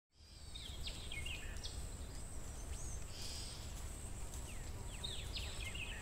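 Forest ambience: several small birds chirping with short falling calls, scattered throughout, over a steady low rumble and a faint steady high hiss.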